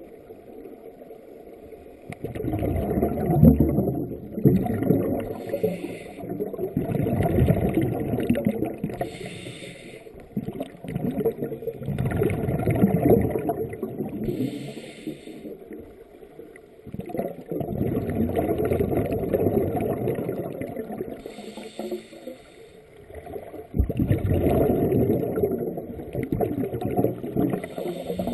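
Scuba regulator exhaust bubbles heard underwater: a bubbling rush of several seconds with each exhaled breath, about five times, with quieter pauses between breaths.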